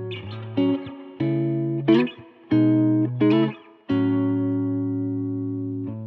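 Instrumental background music: a series of plucked notes and short runs, then one long held note from about four seconds in.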